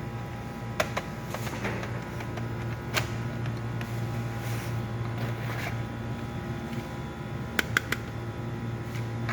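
Sharp clicks and light handling noises from working on a laptop's plastic case and parts: one click about a second in, another near three seconds, and three quick clicks close together near the end, over a steady low hum.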